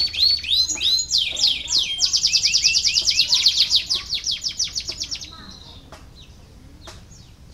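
Canary singing a loud song of quick rising chirps that runs into a fast trill, stopping about five seconds in; after that only faint scattered chirps and a couple of clicks.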